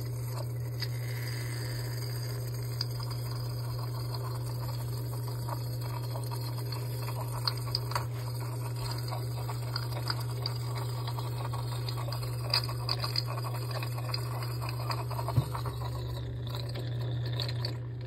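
Samsung front-loading washer running with a steady low hum, switched on to push water through the drain pump opening and flush out debris, with a few small plastic clicks from the drain filter being handled.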